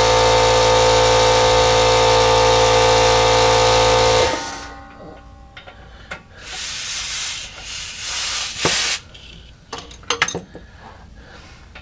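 Pneumatic air ratchet running steadily with a strong air hiss while it drives the driveshaft-to-differential flange bolts, then cutting off about four seconds in. Shorter hissing bursts and a few sharp metallic clicks follow.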